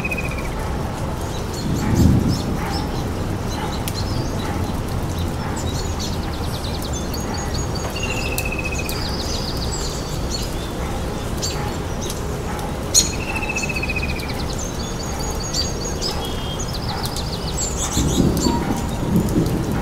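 Small birds chirping over a steady hiss, with a short falling chirp that recurs several times among higher trills. There is a single sharp click about two-thirds of the way through.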